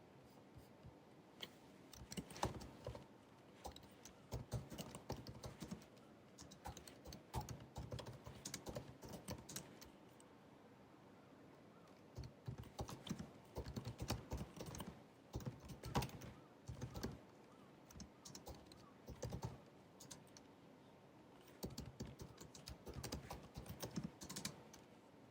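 Typing on a 16-inch MacBook Pro (2019) laptop keyboard: flurries of soft key clicks in uneven bursts, with short pauses between them, the longest of about two seconds a little before halfway.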